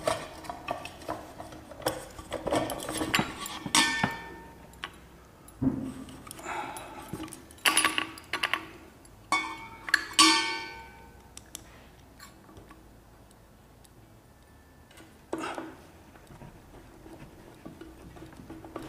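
Metal parts of a ceiling fan's light-kit housing being handled and fitted: scattered clicks, knocks and light metallic clinks, some with a brief ring. A quiet stretch follows, then one more knock near the end.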